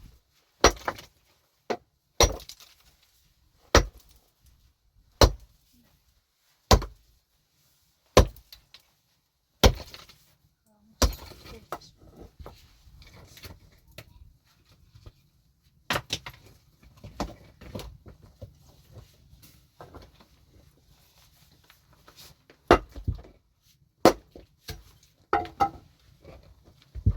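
A hand tool striking hard material again and again. For the first half the blows come steadily, about one every second and a half. After that the knocks are more irregular, with some quick double hits.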